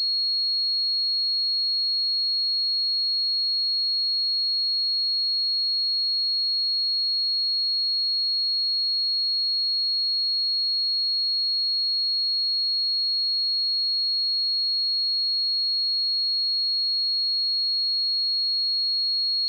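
A pure 4305 Hz sine-wave test tone, one steady high-pitched note held at constant loudness.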